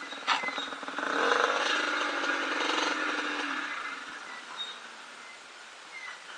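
Yamaha DT125 two-stroke single-cylinder engine revving up about a second in, holding for a couple of seconds, then dropping back to a low run. There is a sharp knock just before the rev and faint bird chirps near the end.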